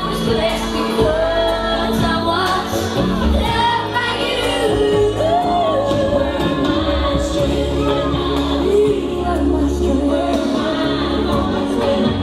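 A song playing, with sung vocals over a steady bass line.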